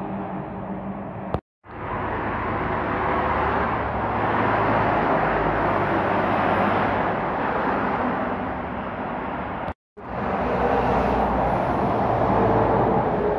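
Highway traffic: trucks and cars passing with a steady roar of tyres and diesel engines, swelling louder as vehicles pass by. The sound cuts out completely for a moment twice, about one and a half seconds in and near ten seconds in.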